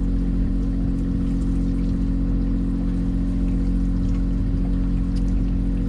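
A fishing boat's engine running steadily with a constant low hum, over a wash of water noise.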